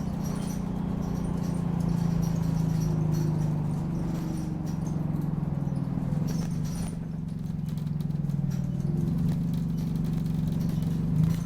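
Optare Solo bus heard from on board: the engine drones steadily under way, its pitch shifting slightly, while short high squeaks from the bus come and go on top.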